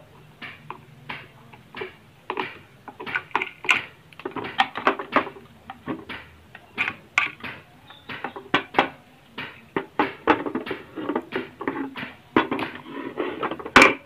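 Irregular light clicks and knocks from a washing-machine control board in its plastic housing being handled: it is prodded with a screwdriver and turned over on a wooden table. A sharper click comes just before the end.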